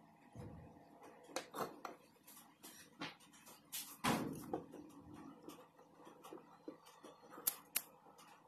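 Handling noise of a white power cord being wired by hand: soft rustles of the plastic cable and scattered small clicks as the copper wire ends are twisted together, with a louder rustle about four seconds in and two sharp clicks near the end.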